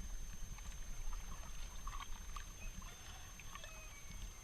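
Kayak paddling on a river: small water splashes and drips from the paddle over a low rumble of wind on the microphone, with a faint steady high whine.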